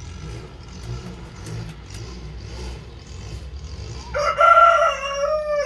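A rooster crowing once, starting about four seconds in: one long, loud call that drops in pitch at the end.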